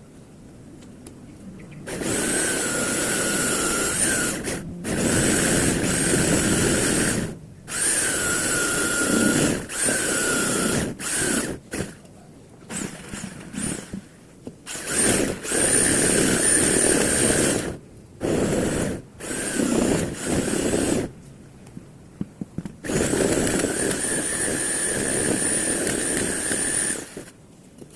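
Rotary hammer drilling into concrete in repeated bursts, switched on for one to four seconds at a time and released, with a steady motor whine through each run; the first burst starts about two seconds in.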